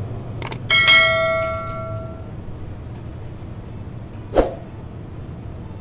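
A single bell-like metallic ring, struck once just under a second in and fading over about a second and a half. A short knock follows near the end, over a steady low hum.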